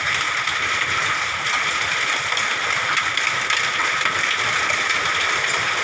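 Heavy hail and rain beating down on a house with tiles blown off its roof: a steady, dense hiss with no let-up.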